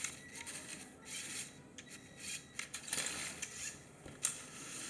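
Lego Technic RC car driving, its four Power Functions L motors and gearing whirring, with plastic clicks and rattles scattered through.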